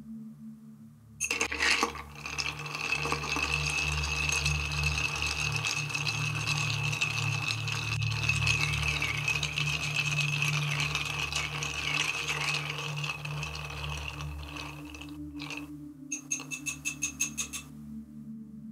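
Ice rattling and clinking against a crystal mixing glass as a Martini is made, a continuous jangle with a steady glassy ring that starts about a second in and lasts some fourteen seconds, then a quick run of sharp clicks near the end.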